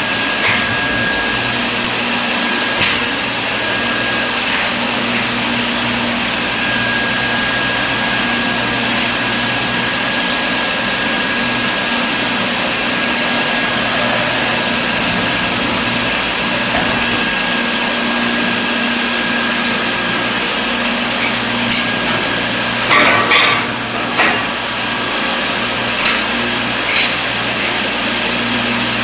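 Steady whirring of workshop machinery with a constant high whine, broken by a few short knocks and clatters in the last third.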